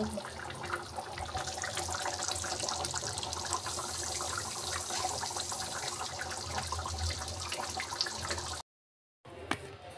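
Shahi paneer gravy bubbling in a metal kadhai on the stove: a dense, steady crackle of small bubbles bursting, over a low hum. The sound cuts out completely for about half a second near the end.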